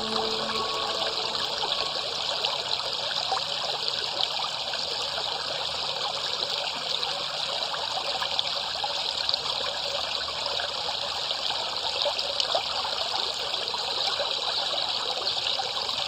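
Water gurgling and trickling steadily, with many small splashes and no break. A few held musical notes fade out in the first second.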